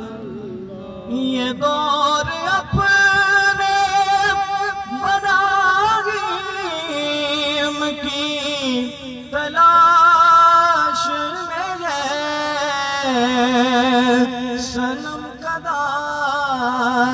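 A voice singing a devotional naat in long, drawn-out notes with a steady wavering vibrato, without recognisable words.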